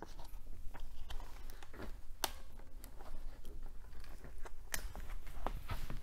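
Hands working a Hutchinson Fusion 5 tubeless tire off an ICAN Aero 40 carbon rim: irregular rubbery scuffs, creaks and clicks as the bead is pushed and pulled. Two sharper clicks come about two seconds and about four and a half seconds in. The bead is a tight fit and hard to get off by hand.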